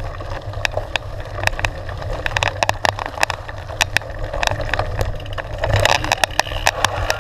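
Mountain bike riding down a rough dirt trail: a steady tyre and wind rumble, with frequent sharp clicks and rattles from the bike and grit on the rough ground.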